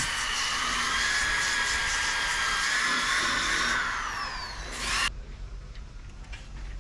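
Handheld power sander with a round pad, whining steadily as it sands the edge of a fiberglass-epoxy disc. About four seconds in it winds down with a falling pitch, gives a short surge, and stops abruptly about a second later.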